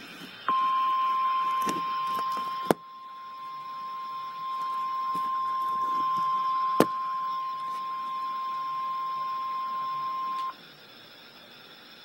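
Weather radio emergency alert tone: one steady, high, unbroken beep lasting about ten seconds, the single-tone alarm that comes before a National Weather Service warning message. Two sharp clicks cut through it, about two and a half and about seven seconds in.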